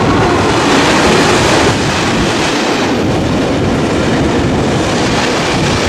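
Freight train passing close by, loud and steady, its wheels clattering over the rails.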